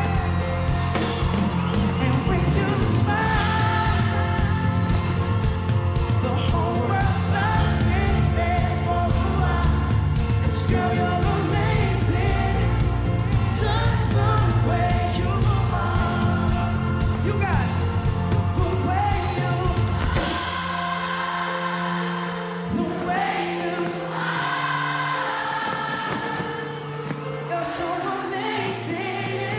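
Live pop band playing through a PA system with singing over it. About two-thirds of the way through, the heavy bass and drums drop out, leaving the voices over lighter backing.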